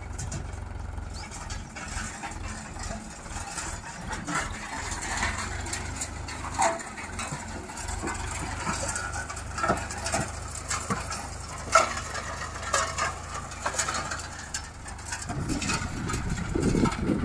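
Heavy diesel engine running steadily at low revs, with scattered short knocks and clicks; the engine sound grows louder near the end.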